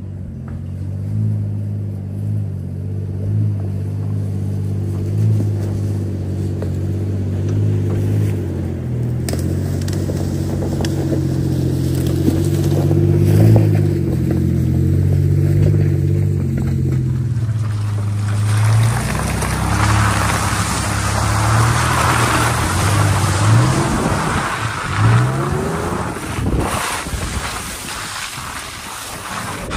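Pickup truck engine labouring up a steep rocky off-road trail, growing louder as the truck passes close by. About two-thirds of the way in, this gives way to tyres splashing and spraying through mud puddles, with the engine revving up and down.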